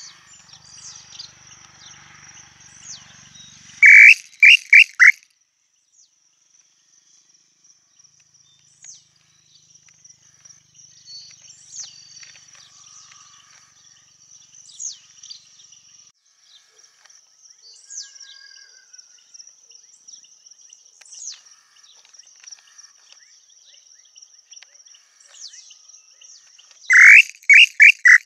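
Tataupa tinamou (inhambu-chintã) singing twice, a few seconds in and again near the end. Each song is a short run of four loud whistled notes, each sliding down, coming a little faster and falling in pitch. Between the songs there is a faint steady high insect drone and thin chirps of small birds.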